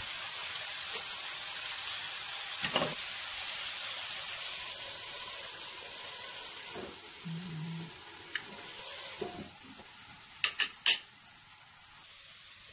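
Stir-fried vegetables and beef balls sizzling in a frying pan while a wooden spatula stirs them, with a knock of the spatula against the pan about three seconds in. Once a metal lid goes on, the sizzle fades to a faint hiss, and three sharp clicks come near the end.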